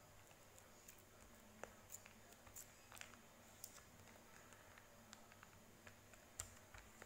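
Faint, irregular small clicks and taps over a quiet room: handling noise, a few dozen light ticks spread unevenly, with a slightly stronger one near the end.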